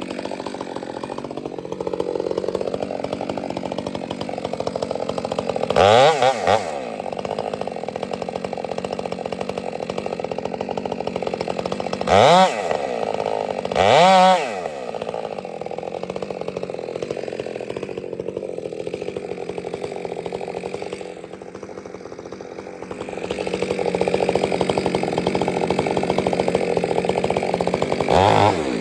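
Two-stroke chainsaw running and cutting wood, its engine steady under load. It revs up to a brief louder peak and drops back about four times, and eases off for a couple of seconds past the middle.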